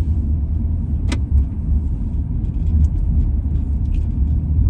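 Steady low rumble of a car driving, heard inside the cabin, with one short sharp click about a second in.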